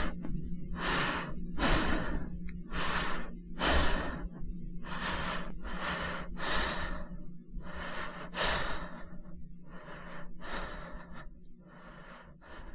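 A person breathing heavily, panting in and out about once a second, the breaths growing fainter toward the end.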